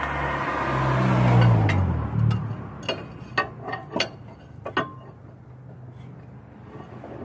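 A vehicle passing close by: its noise swells, then fades as its pitch falls. It is followed by a handful of sharp clicks and knocks.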